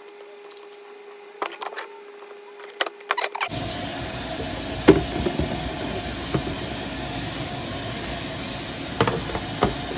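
Small clicks and taps of handling, then, about a third of the way in, a loud steady hiss starts abruptly and carries on, with a few knocks over it.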